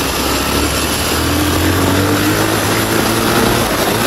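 Motorcycle engine running while riding, with wind rushing over the microphone; the engine note rises a little about a second in as it speeds up.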